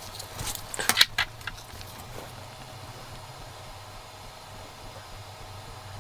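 A cluster of sharp clicks and light taps about a second in, from small items being handled on a repair bench, over a steady low hum.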